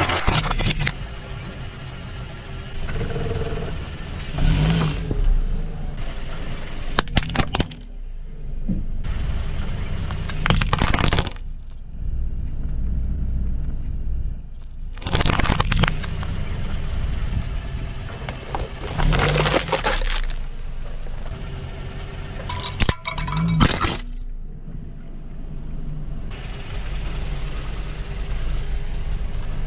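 A car tyre rolling slowly over brittle objects such as dry pasta shells and plastic cutlery, crushing them in about seven separate bursts of cracking and crunching. A steady low rumble from the car runs underneath.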